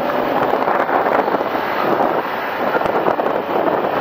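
Wind rushing over the microphone of a camera on a moving motorcycle, a steady noisy rush, with the motorcycle's running and road noise mixed in.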